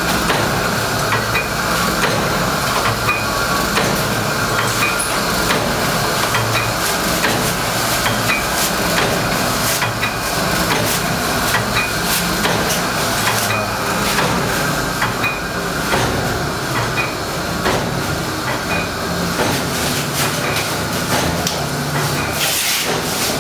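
Sachet water packaging machine running: a loud, steady mechanical clatter with a hiss, marked by regular clicks and knocks from its repeating cycle.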